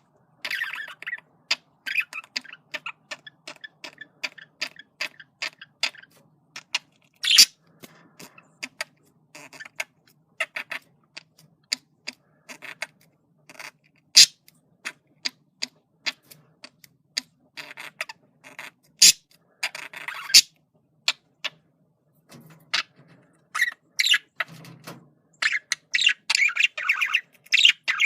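Male budgerigar chattering: a scatter of quick clicks and short chirps, growing into denser, busier chatter near the end.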